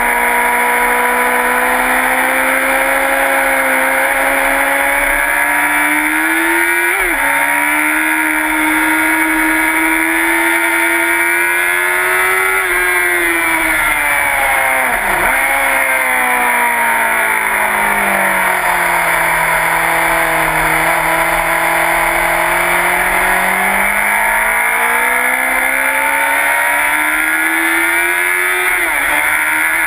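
Sport motorcycle engine at high revs, heard from onboard, pulling hard with its pitch climbing and briefly dipping at upshifts about 7 seconds in and near the end. In the middle it falls away over several seconds as the bike slows for a corner, then climbs again under acceleration.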